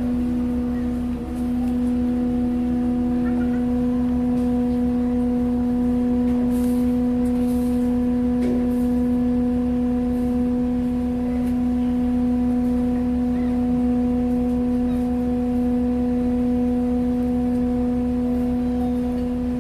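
Ferry's machinery droning: a steady hum with one strong, unwavering tone and its overtones over a low rumble.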